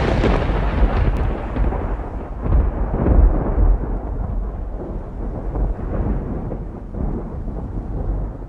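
Thunder: a long rolling rumble that swells a few times and slowly fades away.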